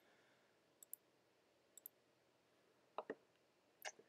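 Faint clicks of a computer pointing device over near silence: small clicks about one and two seconds in, a quick double click about three seconds in, and another click near the end.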